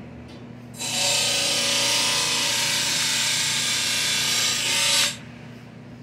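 A power tool runs steadily for about four seconds, a hissing whir that starts about a second in and cuts off sharply.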